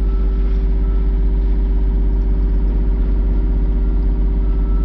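Mini excavator's diesel engine running steadily at a constant speed, a loud, even hum.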